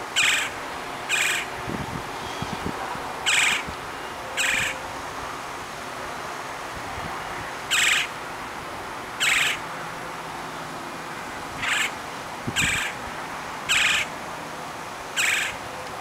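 Woodpecker calling: about ten short, sharp calls, spaced one to three seconds apart, over a steady outdoor hiss.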